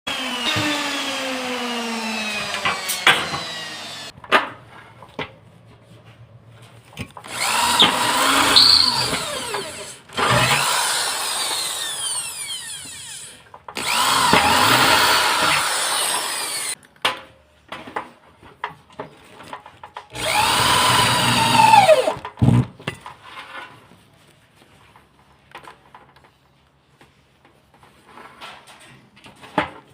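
A handheld power tool's motor running in four bursts of a few seconds each, its pitch rising as it spins up and falling as it winds down, with small clicks and knocks between runs.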